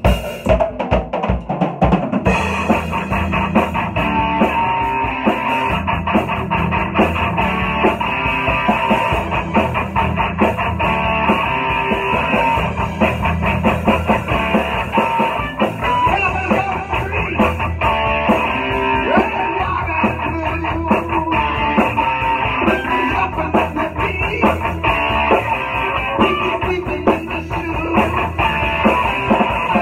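Electric guitar and drum kit playing a rock song together, the full band coming in right at the start.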